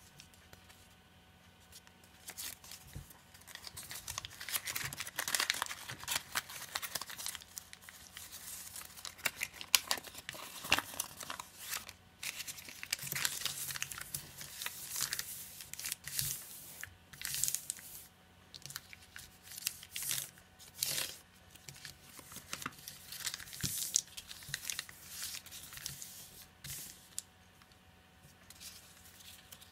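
Sheet of origami paper crinkling and rustling in irregular bursts, starting about two seconds in, as the creased paper is unfolded, pressed flat by hand against a cutting mat and folded again.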